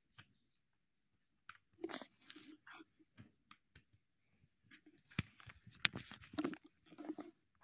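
Irregular crunching and crackling close to a microphone, with a few sharp clicks, busiest in the last few seconds.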